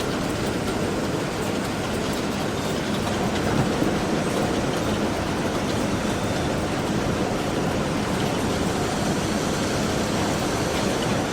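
Automatic postal letter-sorting machine running: a steady, dense mechanical noise with faint, rapid clicks scattered through it.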